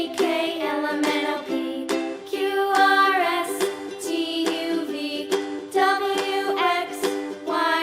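Background music: a light, cheerful children's tune with plucked ukulele-like accompaniment and a singing voice.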